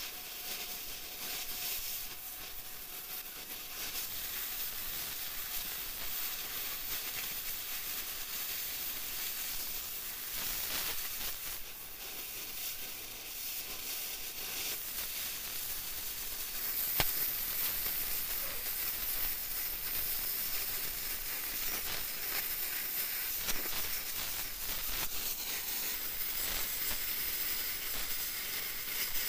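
Oxy-fuel cutting torch hissing steadily as it burns through a steel car leaf spring, with a faint click or two from the cut partway through.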